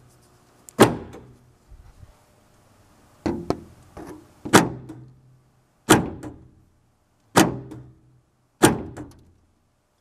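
Rebuilt GM power door lock actuator, a small DC permanent-magnet motor with a rack and pinion, working the lock linkage back and forth. It gives a string of about six sharp clunks, roughly one every second and a half, each ringing briefly in the bare door shell. The actuator locks and unlocks on every press of the switch: the repair has worked.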